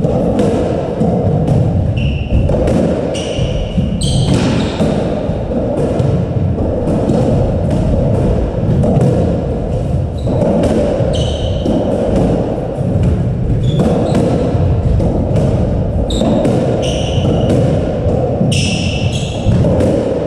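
Squash rally: the ball knocks irregularly off racket strings, walls and the wooden floor, with several brief shoe squeaks on the court floor as the players move.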